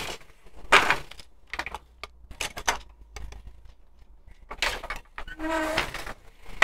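Wooden hand floor loom at work: a series of sharp wooden knocks and clacks, irregularly spaced about a second apart, as the beater and shuttle are worked.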